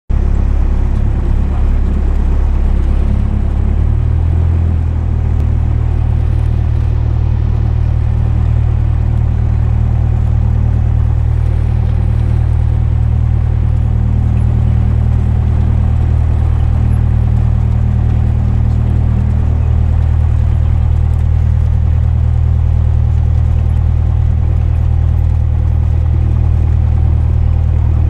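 Cessna 172 Skyhawk's piston engine and propeller running steadily, a loud low drone heard inside the cockpit, with a shift in the engine note about four seconds in.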